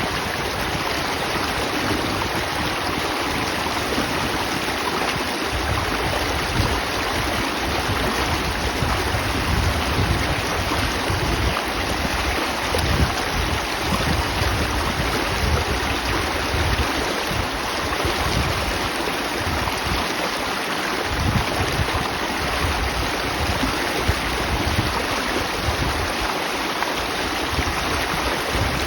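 Steady rushing of moving water, with a low, uneven gusting rumble underneath.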